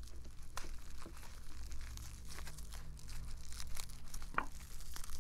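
Clear plastic wrapping crinkling and crackling in irregular snaps as hands peel it off a wood-handled carving knife.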